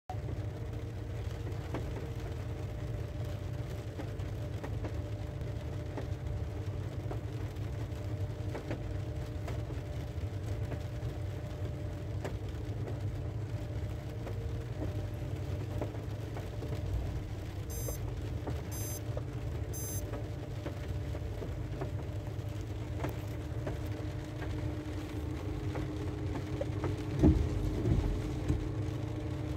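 Steady low hum of an idling car engine heard inside the car's cabin, with rain pattering on the car. Three short high electronic beeps about a second apart come midway, and a couple of knocks near the end.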